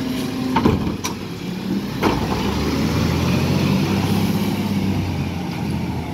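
Side-loading garbage truck: a few knocks and clatters from its lifting arm setting the emptied wheelie bin down and folding in during the first two seconds, then the truck's diesel engine pulling away, running steadily and growing louder.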